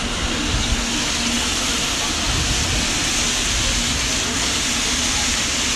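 A line of ride-on floor scrubber-dryers running past on a marble floor: the steady hiss of their vacuum and scrubbing motors, with a low hum underneath.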